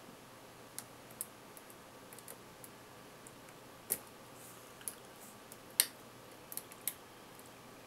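Faint, irregular metallic clicks and ticks of a lock pick working the dimple pins of a Millenco Magnum cylinder lock. The sharpest clicks come about four seconds in and just before six seconds.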